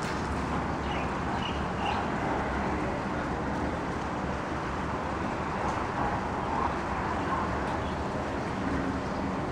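Steady rumble of distant road traffic, with a few faint high bird chirps about a second in.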